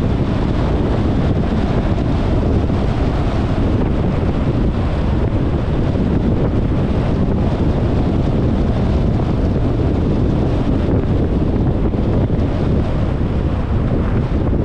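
Steady wind rumble on the microphone of a camera on a moving car, mixed with road and vehicle noise.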